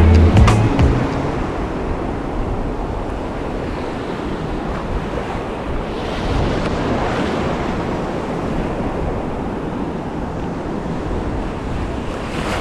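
Ocean surf washing and breaking close around the microphone in shallow water, with wind noise on the microphone.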